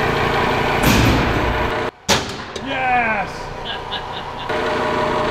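CNC milling machine full-slotting through a steel vise with a large end mill, a steady loud cutting noise. About two seconds in it breaks off, giving way to a sudden loud hit and a few falling tones, and the steady machining sound returns near the end.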